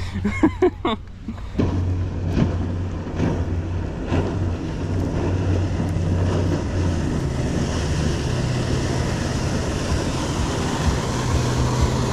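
A passing boat's outboard motor running at speed, a steady low drone. A few short clicks come in the first second or so.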